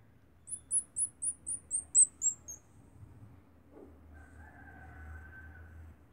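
A quick run of about eight very high-pitched chirps, about four a second, each note and the whole run falling slightly in pitch.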